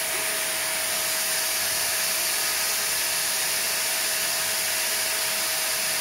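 Steady whooshing hum of an electric appliance motor moving air, unchanging throughout.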